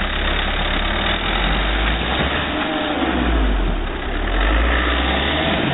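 Suzuki Jimny's 1.5-litre DDiS four-cylinder diesel running at low revs as the 4x4 crawls past close by. The deep engine note swells and dips with small throttle changes, easing off briefly about four seconds in.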